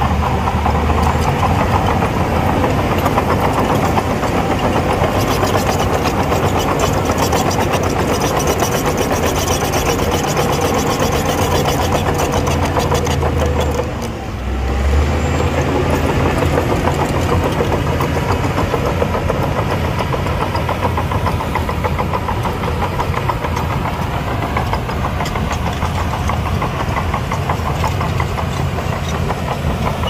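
Diesel engine of heavy earthmoving machinery running hard with a steady clatter. The sound dips briefly about halfway through, then carries on as before.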